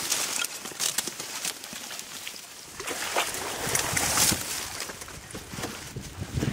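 Dry reeds and grass rustling and crackling as someone pushes through them on foot, with irregular crunching footsteps.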